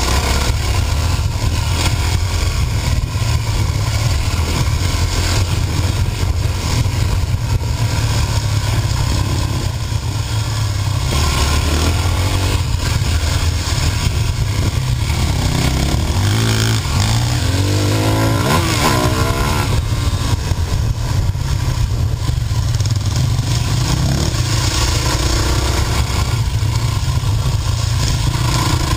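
Dirt bike engine running under load while riding, the revs rising and falling repeatedly as the throttle is worked, most clearly near the middle.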